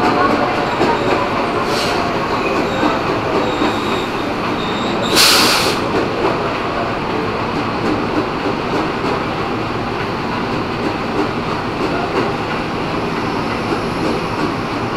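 Former JR East 205-series electric commuter train running into the platform and slowing, with wheels clacking and squealing on the rails. A short, loud hiss comes about five seconds in.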